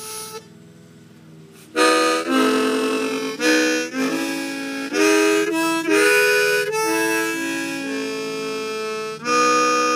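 East Top diatonic harmonica in A being played. A short note sounds at the very start, then from about two seconds in comes a quick run of chords and notes that keep changing pitch.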